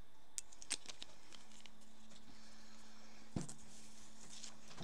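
Small hand-handling sounds of an amber glass dropper bottle and its dropper: a few light clicks in the first second, then a single knock about three and a half seconds in as it is set down.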